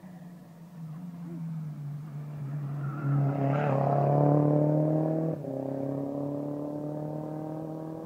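Rally car engine at full throttle, growing louder as it approaches and passes close about four seconds in. Its note climbs steadily as it accelerates up the stage. The sound drops abruptly a little after five seconds in, then carries on at a lower level with the engine still pulling hard.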